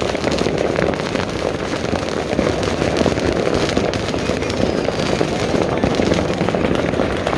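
Many homemade fireworks and firecrackers going off at once across a city, their bangs and pops merging into a continuous crackling din with no pause.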